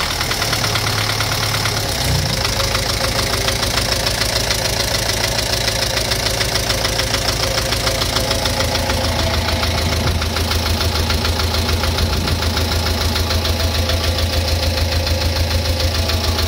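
Engine idling with a steady, rhythmic knock coming from inside it.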